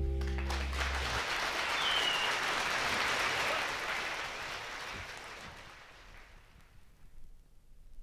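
The band's closing chord ringing out for about a second, then an audience applauding, the clapping dying away over several seconds.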